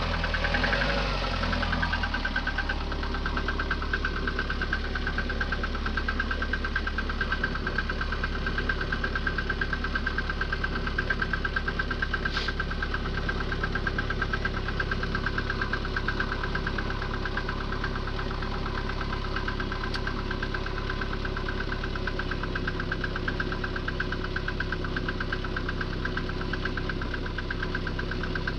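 VAZ 2110 16-valve petrol engine idling with a fast, even knocking. It is the cold-engine knock that the owner hears after a start at −10 °C and that dies away as the engine warms.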